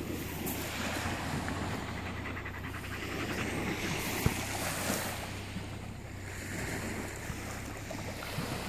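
Small waves washing in and out on a pebble shore: a soft steady rush that swells a few times. One sharp tap sounds about four seconds in.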